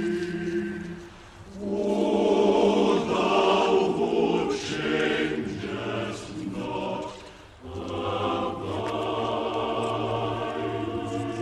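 A choir singing held chords, with short breaks between phrases about a second in and again about seven and a half seconds in.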